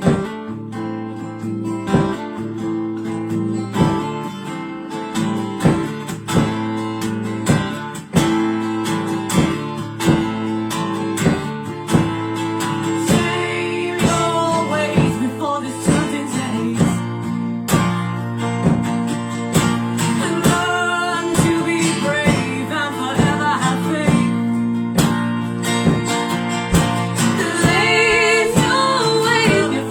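Acoustic guitar strumming a steady rhythm in an instrumental passage of a folk song, with a wavering higher melody line coming in over it from about halfway.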